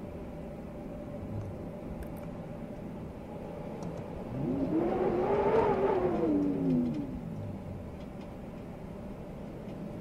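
Steady blizzard wind noise with a faint low hum. From about four seconds in, a motor vehicle passes: its engine grows louder with its pitch rising, then falls in pitch and fades about seven seconds in.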